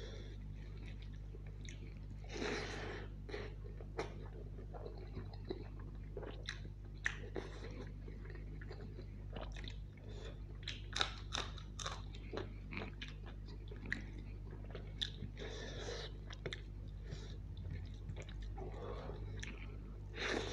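Close-miked chewing and wet mouth sounds of a person eating biryani rice and chicken curry by hand, with many short smacks and clicks, over a steady low hum.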